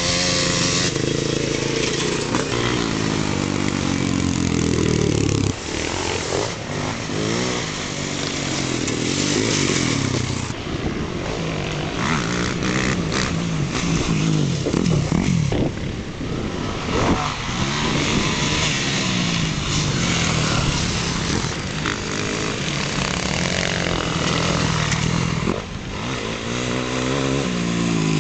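Motocross dirt bike engines revving hard and easing off as bikes race past on a dirt track. The pitch rises and falls repeatedly, and one engine's note gives way to the next as riders follow one another.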